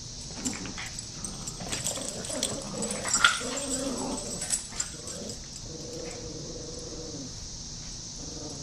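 Several young dogs play-fighting over a plush toy: growls, yips and whimpers mixed with scuffling knocks, the busiest and loudest stretch in the first half. Near the end comes one longer whine.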